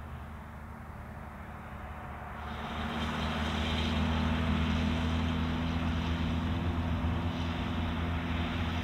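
A van's engine running as it drives along a road, a steady low hum that grows louder about two and a half seconds in and then holds.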